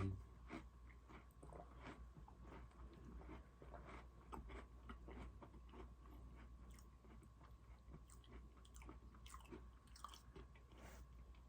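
Close-miked chewing of crunchy Oreo cookies: a steady run of small, soft crunches and mouth clicks.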